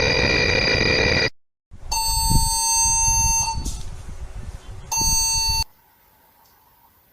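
Emergency Alert System-style alarm tones, harsh and electronic over a rumbling static: a high steady tone cuts off about a second in, and after a short gap a lower steady alert tone sounds for under two seconds, fades into noise, returns briefly, then stops abruptly.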